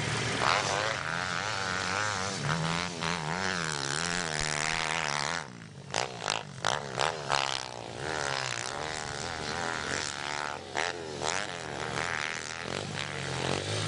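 Small single-cylinder four-stroke pit bike engines revving up and down on a motocross track, the pitch rising and falling with each throttle change. About halfway the engine sound drops briefly and a few sharp knocks break through.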